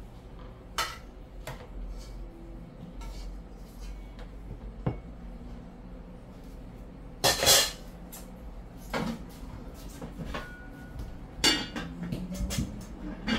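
A metal serving spoon clinking and scraping against a cooking pot while stew is dished out onto plates. Scattered clinks and knocks, with the loudest clatter about halfway through.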